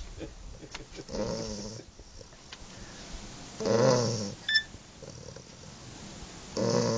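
English bulldog snoring in its sleep: three snores about three seconds apart, the last still going at the end. A brief high squeak follows just after the second snore.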